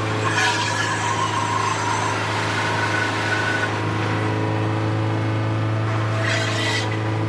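Wood crusher machine running with a steady low hum, with two stretches of harsher, noisier crackling in the first couple of seconds and again about six seconds in, as material passes through it.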